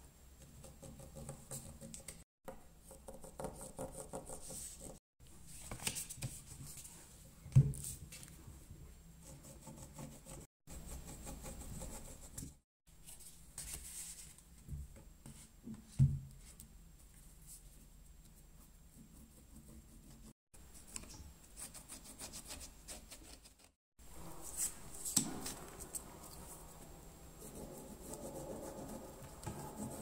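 A pointed tool, a metal awl and then a wooden stick, scratching and rubbing as it traces around paper patterns on leather, in short bouts cut off abruptly several times. Two sharp knocks, about a third and halfway through, from the heavy steel weight being set down on a pattern.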